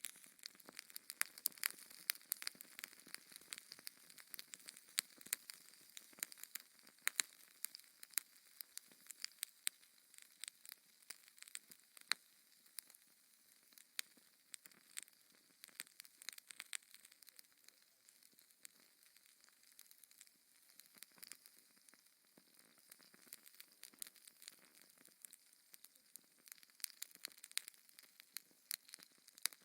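Wood fire crackling in a fireplace: irregular sharp pops and snaps over a faint hiss.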